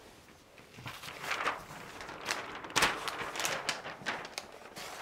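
Large paper sheets rustling as a flip chart page is turned over, with shuffling and a few sharp clicks, the loudest about three seconds in.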